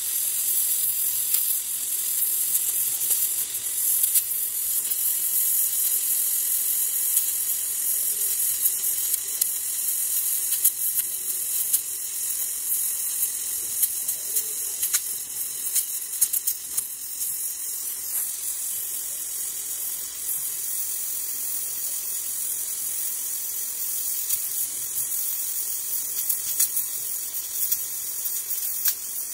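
Gas welding torch flame hissing steadily with scattered crackles as it melts aluminum filler rod onto an aluminum motorcycle engine casing.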